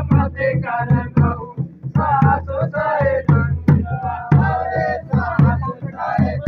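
Men singing a Holi folk song together, with sharp drum-like beats about two or three times a second.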